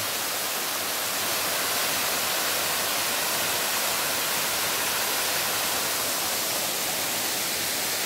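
Small waterfall pouring over a rock ledge into a pool: a steady rush of falling water.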